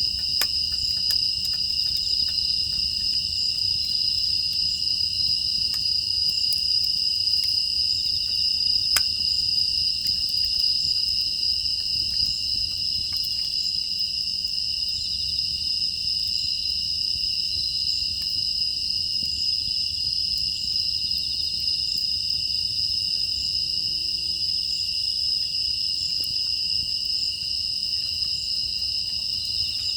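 Steady chorus of crickets and other grass insects, shrilling without pause, with scattered faint crackles from a wood fire.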